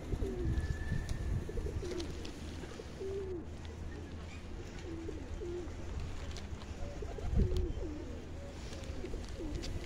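Pigeons cooing over and over in short, wavering low calls, above a steady low rumble.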